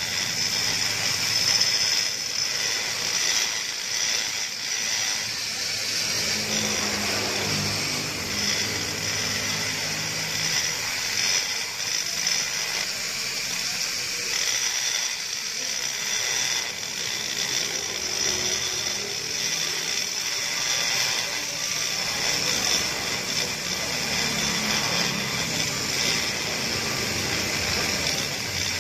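Small high-speed rotary grinder with a burr running steadily, giving a high-pitched whine as it grinds out the exhaust port of an aluminium two-stroke motorcycle cylinder.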